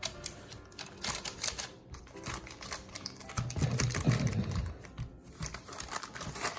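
Irregular light taps and clicks as shortbread crust dough is pressed and smoothed into an even layer in a parchment-lined baking pan.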